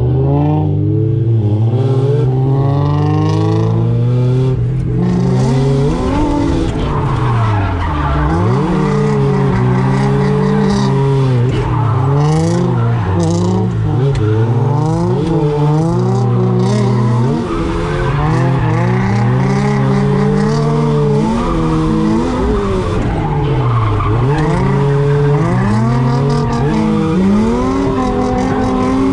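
Mazda Miata's four-cylinder engine revving up and falling back again and again through a drift, heard from inside the cabin, with the tyres sliding on wet tarmac.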